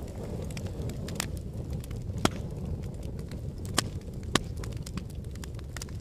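Wood fire burning in a fireplace: a steady low rumble of flames with scattered sharp crackles, and three louder pops, one about two seconds in and two more close together past the middle.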